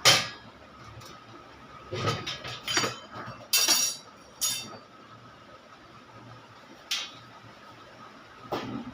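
Metal parts and tools being handled during an amplifier repair: a series of sharp clinks and knocks, a few bunched together in the middle, with long gaps between the others.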